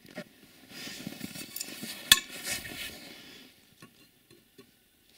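Steel four-way cross lug wrench being handled and fitted to the wheel nuts, light metallic clinks and rustling, with one sharp metal click about two seconds in.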